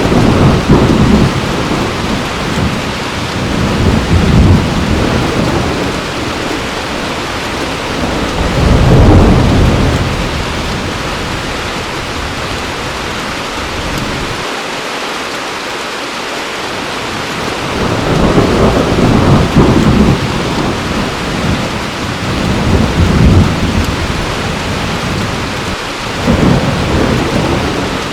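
Heavy rain falling steadily, with several deep rolls of thunder swelling and fading through it.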